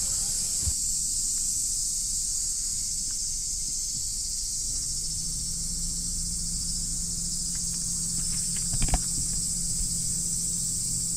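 A steady, high-pitched insect chorus, with a faint low hum coming in about halfway through and a couple of light knocks near the end.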